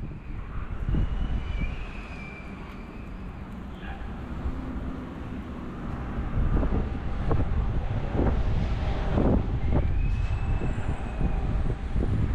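Road traffic passing, with wind buffeting the microphone; the wind gets louder about halfway through.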